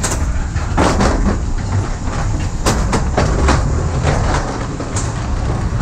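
Footsteps and rolling suitcase wheels on a jet bridge floor: a steady low rumble with irregular clacks and knocks, several of them close together around the first second and again around three seconds in.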